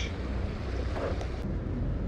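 Steady low rumble of wind on the microphone over open-air ambience, with a couple of faint clicks about a second in.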